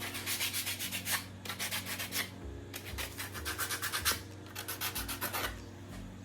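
Rapid back-and-forth rubbing strokes on wood, in four quick runs with short pauses between, over a low steady hum.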